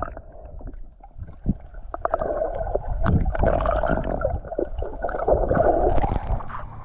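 Water splashing and gurgling close to the microphone, irregular and uneven, with scattered knocks and a low rumble.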